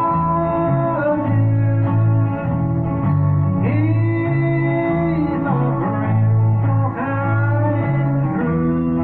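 Instrumental break in a gospel song: guitar playing over a steady bass line that alternates between notes.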